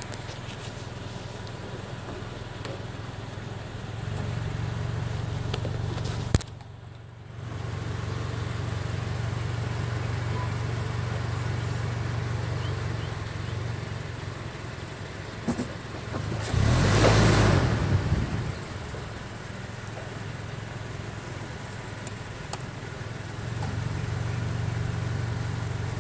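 Vehicle engine running with a steady low hum as it creeps along at a few miles an hour. A short click and brief dip come about six seconds in, and a brief loud rush of noise, the loudest thing here, comes about seventeen seconds in.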